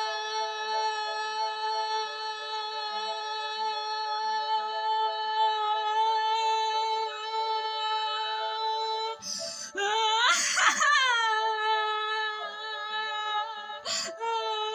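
A woman's voice holding one long, steady sung note. About nine seconds in it breaks off into a short wavering swoop, then settles back on the same note, with another brief break near the end. It is a breath-limited attempt to sustain the tone.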